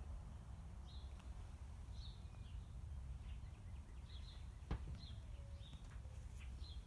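Faint short, high bird chirps every second or so, over a low steady rumble, with one sharp click a little over halfway through.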